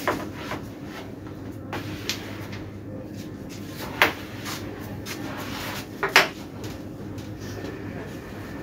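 Carrom striker flicked across a wooden carrom board and clacking into the wooden carrom men: sharp knocks right at the start, again about four seconds in, and loudest about six seconds in.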